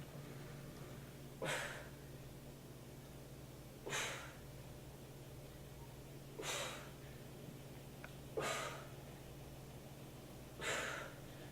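A woman's hard exertion breaths during a workout exercise: a short, sharp exhale about every two and a half seconds, five in all. A steady low hum runs underneath.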